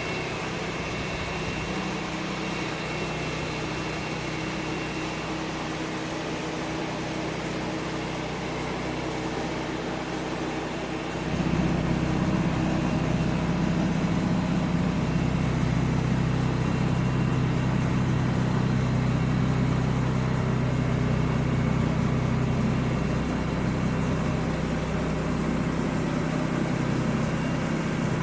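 Sawmill engine running steadily, then growing louder and deeper about eleven seconds in and holding there.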